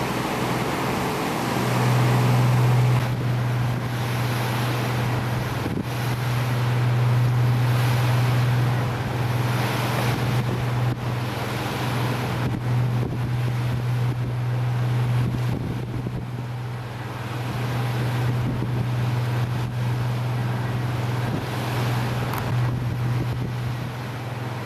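Boat underway, its engine running with a steady drone, with water rushing past the hull and wind buffeting the microphone.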